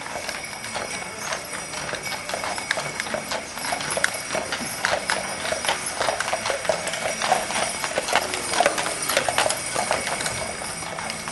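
Horse hooves clip-clopping on a hard surface: a quick, irregular run of hoofbeats that grows louder around the middle and eases toward the end.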